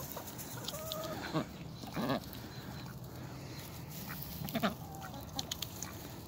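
Ducks giving short, scattered quacks while feeding on collard greens, a handful of calls spread over several seconds with the loudest about four and a half seconds in.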